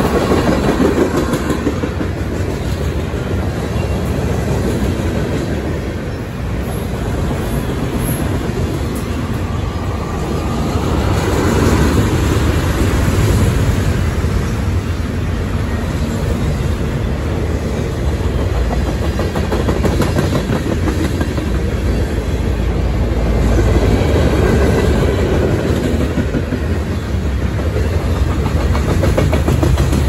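Freight cars rolling past at close range: steady noise of steel wheels on rail with rapid clicking as the wheels pass over the track.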